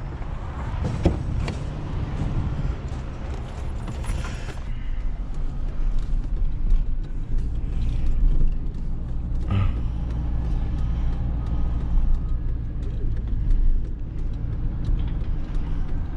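A truck's engine running as the truck is driven a short way, a steady low hum with a few clicks and knocks and a short hiss about four seconds in.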